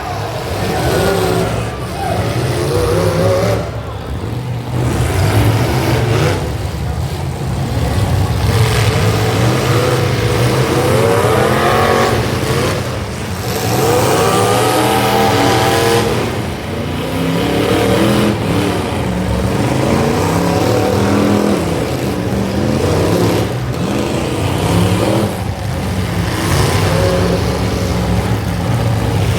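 Demolition derby cars' engines running loudly, revving again and again with pitch climbing and falling, several engines overlapping.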